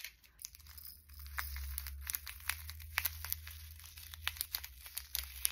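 Small plastic parts of a miniature toy bird feeder being handled, with light irregular clicks and crinkles as its tiny seed-filled container is turned in the fingers.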